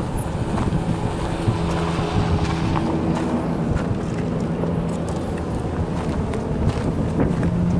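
GMC fire truck's engine idling with a steady low hum, with wind buffeting the microphone.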